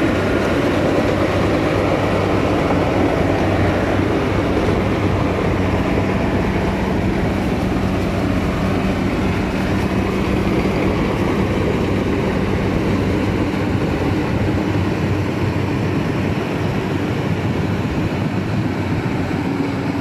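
Yanmar AW70V rice combine harvester running at work, heard up close: its diesel engine and threshing machinery make a loud, steady drone with a low hum under it.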